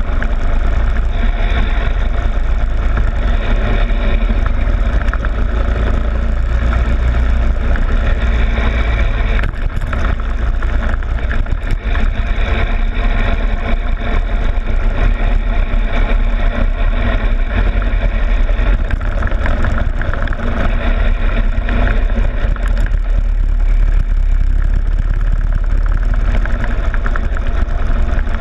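Rental go-kart engine running continuously while the kart laps the track, heard from a camera on the kart's front fairing with heavy low rumble. It eases briefly about ten seconds in, then picks up again.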